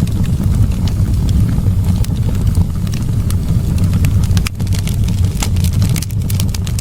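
Wood fire burning in a fireplace: a steady low roar of flames with frequent sharp crackles and pops.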